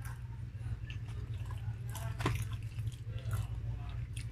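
Close-up chewing of a mouthful of grilled chicken, with wet lip smacks and mouth clicks. A steady low hum runs underneath.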